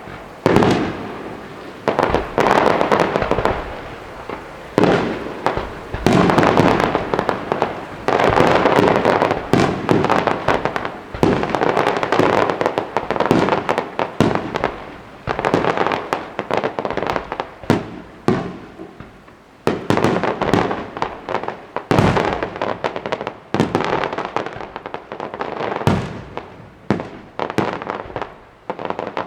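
Fireworks display with sharp bangs going off in quick succession and long stretches of crackling between them.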